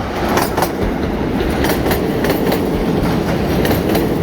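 A pair of coupled Class 153 diesel railcars running past, their wheels clicking over rail joints in closely spaced pairs over a steady rumble.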